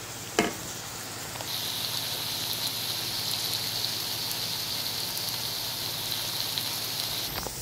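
Okra and karela (bitter melon) frying in hot oil in a wok: a steady sizzle with fine crackling that sets in about a second and a half in. There is a single short click just before it.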